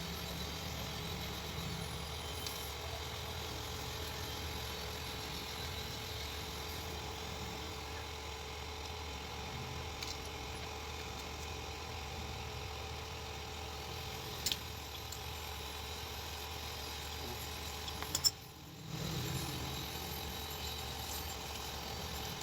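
Steady low background hum, broken by a few short, sharp clicks, the loudest about 18 seconds in.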